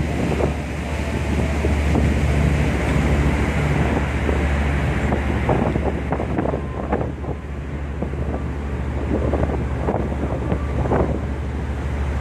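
Wind rushing over the microphone on an open boat deck, over the steady low drone of a river tour boat's engine.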